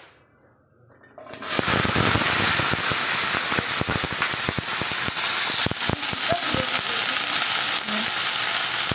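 Cut okra dropped into hot oil in a frying pan, setting off a loud sizzle about a second in: a steady hiss with many small crackles and pops as the pieces begin to fry.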